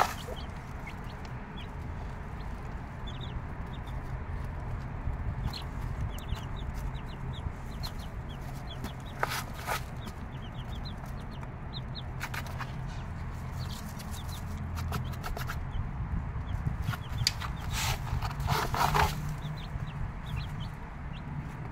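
Mother hen clucking now and then among her six-day-old chicks, which peep in short, high cheeps throughout; the loudest clucks come about halfway through and again near the end.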